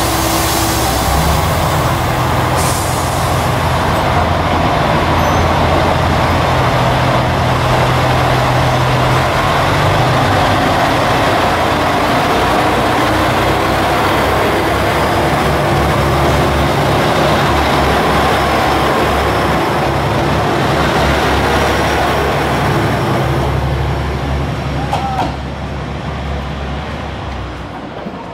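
JR Shikoku 2000 series diesel multiple unit pulling out of the station: its diesel engines run hard under load, the engine note changing in steps as it gathers speed, with wheels on rail as the cars pass. The sound fades over the last few seconds as the train draws away.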